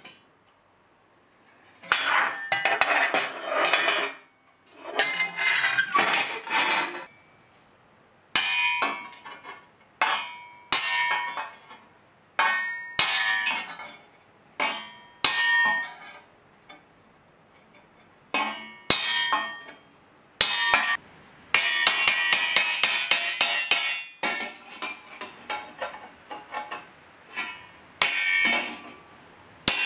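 Hammer striking a 4130 spring-steel armour plate held over a stake, in quick runs of blows with single strikes between them that leave the steel ringing.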